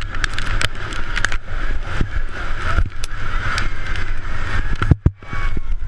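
Wind rushing over the microphone and skis hissing and scraping over hard, rutted snow at speed, with scattered sharp clicks and knocks as the skis chatter over the ruts. The sound drops out briefly about five seconds in.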